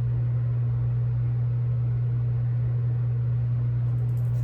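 Steady low hum, unchanging, with faint hiss above it and a few faint high ticks near the end.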